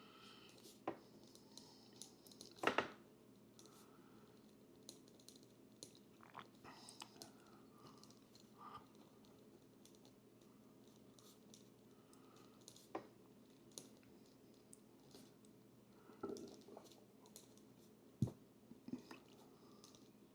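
Pen writing on paper: faint, intermittent scratching with a few sharper clicks and taps, the loudest a couple of seconds in and near the end.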